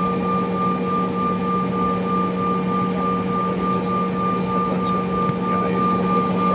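Steady cabin noise inside a Mitsubishi CRJ-900LR at taxi. Its two rear-mounted GE CF34 turbofans give a steady hum and a higher whine over an even rush of air.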